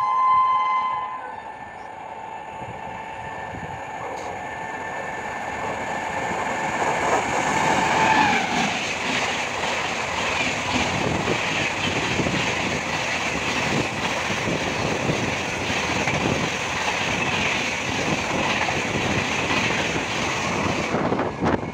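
A Rajdhani Express of red LHB coaches passing at speed, its rumble building over the first few seconds, with a brief tone dropping in pitch about eight seconds in. Then comes a steady rush of wheel clatter on the rails as the coaches and the rear power car go by, cut off suddenly near the end. A short chime sounds at the very start.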